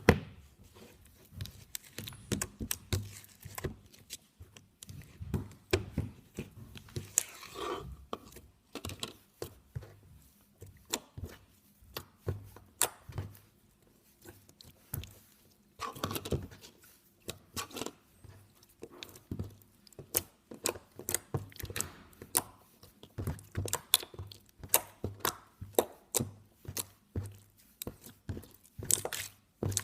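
Hands squeezing, stretching and pressing a clicky, non-sticky slime, making irregular small clicks, pops and squelches.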